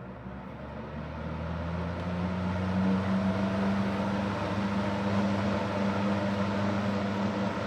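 Super Electric 14-inch box fan (model 1475) running on high, its motor hum and blade whoosh rising over the first three seconds as it comes up to speed, then holding steady and loud.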